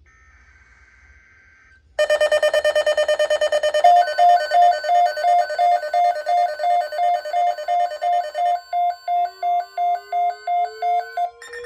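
NOAA weather alert radios sounding their alarms for a severe thunderstorm watch: a faint buzz, then loud rapid electronic beeping starts about two seconds in, and a second pulsing alert tone of about two to three beeps a second joins at about four seconds. Part of the beeping stops a little past halfway, and a slowly rising tone comes in near the end.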